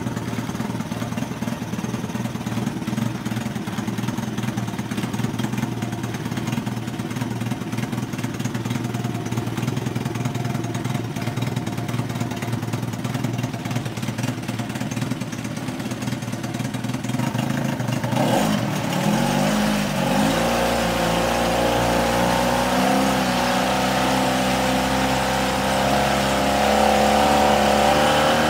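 Yamaha 25D two-cylinder two-stroke outboard engine on a test run after a fuel-system clean-out. It runs steadily at low speed, then about two-thirds of the way in the revs rise and it settles at a higher, louder speed, with the propeller churning the test tank's water.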